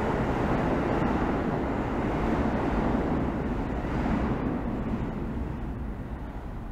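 A subway train running on the tracks with a steady rumble that slowly fades as it moves away.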